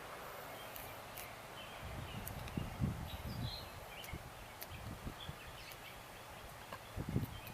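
Quiet handling noise from electrical tape being wound around a wire splice: scattered light clicks and a few low bumps, the loudest around three seconds in and again near the end. Faint bird chirps and a steady outdoor hiss sit underneath.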